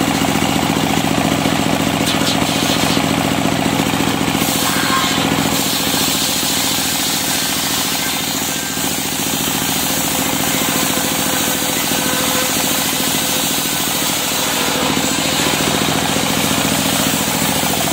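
Engine-driven sawmill circular saw running steadily while ripping a long plank of African wood (Maesopsis) lengthwise. A brief lull about halfway.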